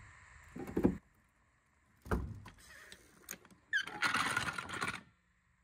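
Small floor jack being lowered and pulled out from under the car: a couple of metallic clunks, then about a second of rolling scrape with a brief squeak at its start.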